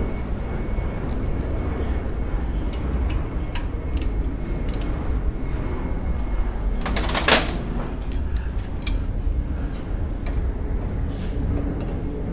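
Steady low workshop rumble with scattered light clicks, a short rushing noise about seven seconds in and a sharper click just before nine seconds.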